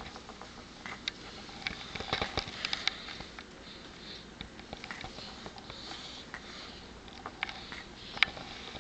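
Sleeping baby snoring softly through the nose, a faint snuffling hiss that comes and goes, with scattered small clicks and rustles.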